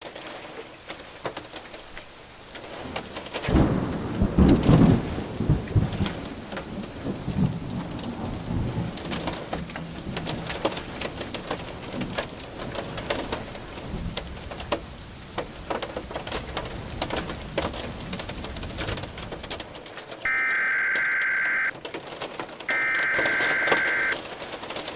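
Steady heavy rain with rolling thunder, the loudest rumble about four seconds in. Near the end come two identical buzzy data bursts of about a second and a half each, the digital header tones of an Emergency Alert System message starting a new alert.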